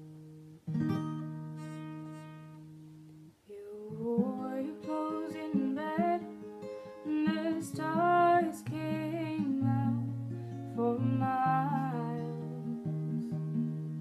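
Solo acoustic guitar with a capo, picked and strummed, with a woman singing over it. The guitar rings on alone at first and stops briefly a little over three seconds in. The voice comes in about four seconds in and carries the melody through the rest.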